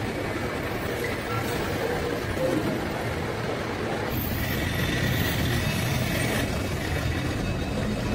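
School bus engines running as the buses drive off, a steady low sound of engines and traffic.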